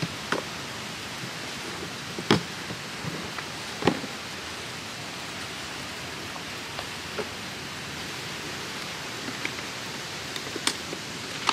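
Steady wind buffeting the microphone, with a few sharp knocks and clacks from a plastic storage tote as its lid is lifted off and the box is handled, the loudest about two and four seconds in.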